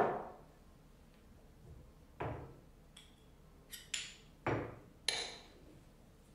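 Stone pestle pounding in a granite mortar: about half a dozen sharp stone-on-stone knocks at irregular intervals, each ringing briefly.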